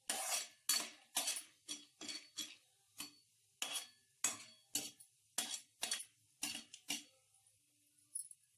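A spoon stirring popcorn kernels in oil in a metal pan, knocking and scraping against the pan about twice a second in an even rhythm, stopping about seven seconds in.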